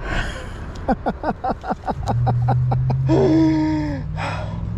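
A man laughing excitedly in quick breathy bursts, then letting out a long exclamation that falls in pitch. A steady low engine hum from a vehicle starts about two seconds in.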